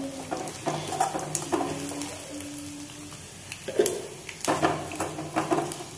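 Metal spoon stirring and scraping against an aluminium kadai as grated coconut, garlic and cumin seeds roast in a little coconut oil, with a light sizzle. The scrapes come as irregular clicks, busier in the second half.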